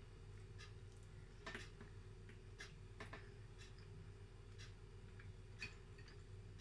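Quiet eating sounds: a metal spoon in a soup bowl and chewing, heard as faint, irregular clicks about once a second over a low steady hum.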